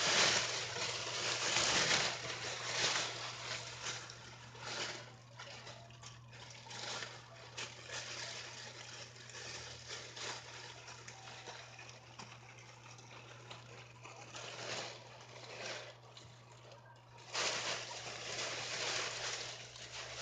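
A poncho rustling in irregular bursts as it is pulled on, loudest in the first couple of seconds and again near the end.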